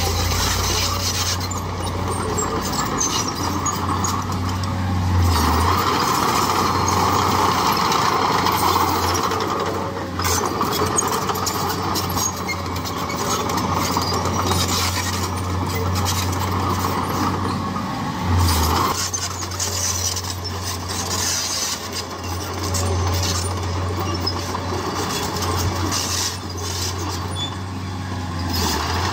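Heavy diesel earthmoving machinery running continuously as it works the soil, with the engine working harder for a few seconds several times.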